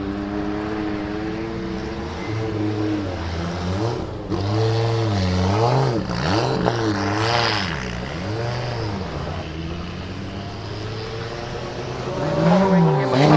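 Audi 200 Quattro Trans-Am race car's turbocharged five-cylinder engine running at low revs. It gives a series of quick throttle blips, rising and falling in pitch, from about four seconds in and again near the end.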